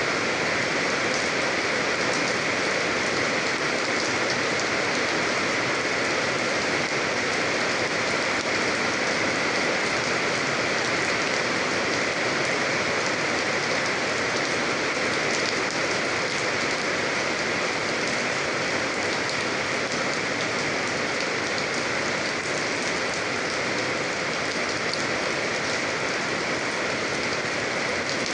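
Steady rain falling and pattering on a surface, an even hiss of many small drop impacts that does not let up.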